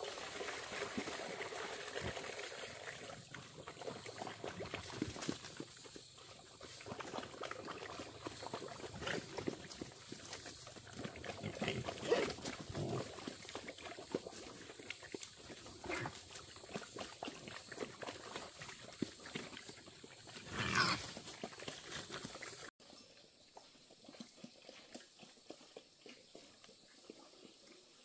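Farm animals calling on and off in short irregular sounds, with one louder call about three-quarters of the way through. The sound cuts off abruptly near the end, and what follows is quieter.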